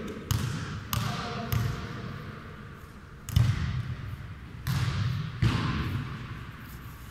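A futnet ball being kicked and bouncing on the hard floor of a large sports hall: six sharp thuds, each with a hall echo, the louder three in the second half.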